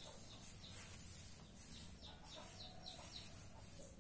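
Faint clucking of chickens, with a few short high chirps.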